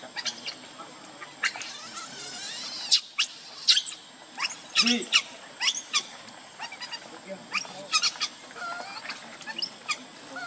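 Monkeys giving many short, high squeaks and chirps in quick, irregular succession.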